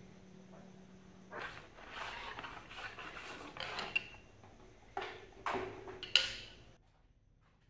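New chrome motorcycle front fork tubes being handled out of their box: rustling of the packaging and tubes, with several clinks of the steel tubes knocking together. The sharpest clink, about six seconds in, rings briefly. A low hum is heard in the first second or so.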